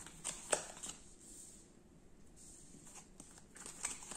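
Tarot and oracle cards being handled: short crisp card clicks and slaps, a cluster in the first second and another near the end, with a quiet stretch between.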